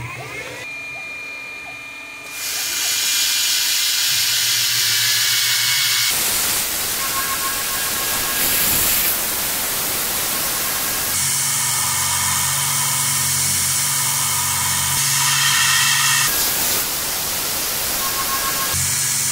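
CNC milling machine running a small end mill through aluminium: a faint steady whine from the spindle, then about two seconds in a loud steady hiss from the compressed-air nozzle blowing at the cutter. The sound changes abruptly several times.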